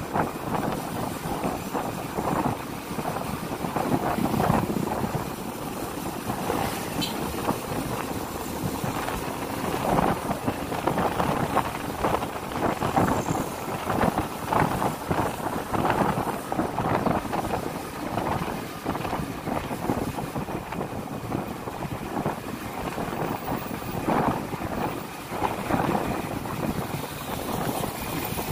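Wind rushing over the microphone on a moving motorcycle, swelling and easing in gusts, with the motorcycle's engine running underneath.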